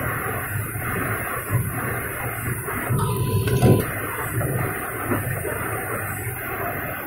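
Automatic cooking-oil filling machine running with a steady mechanical hum and rattle. A brief louder clatter comes about three and a half seconds in.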